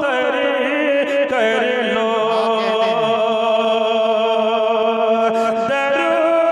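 A man singing a naat unaccompanied into a microphone. The voice winds through an ornamented phrase, then holds one long note, which shifts to a new pitch near the end.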